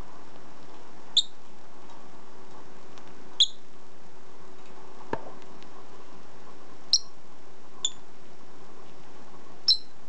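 Peach-faced lovebird giving five short, sharp, high-pitched chirps, one every second or two. A single click comes about five seconds in.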